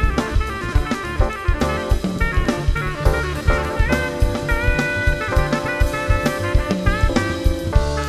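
Live jazz band playing: a saxophone carries a melodic line with some bent notes over a busy drum kit and double bass.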